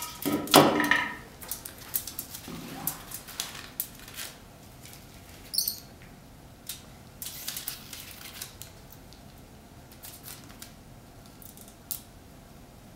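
A terracotta pot set down on aluminium foil with a knock about half a second in, followed by scattered small ticks, taps and crinkles of weighing paper and metal tools being handled on the foil.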